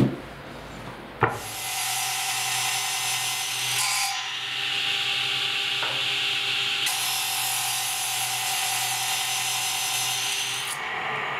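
Power woodworking machine cutting the end of a clamped wooden board: a sharp knock about a second in, then a steady cutting noise over the motor's tones for about nine seconds. The cutting stops shortly before the end, leaving the motor hum.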